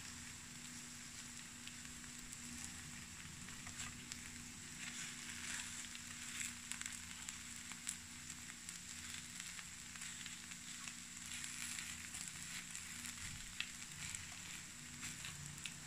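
Takoyaki balls sizzling faintly in a takoyaki pan, a steady hiss with scattered small crackles.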